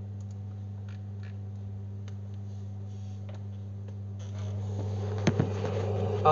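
A pause in the chanting: a steady low hum with a few faint ticks, and a hiss that rises over the last two seconds.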